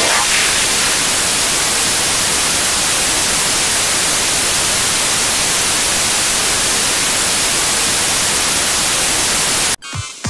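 Loud, steady static hiss like white noise, which cuts off suddenly near the end as electronic music starts.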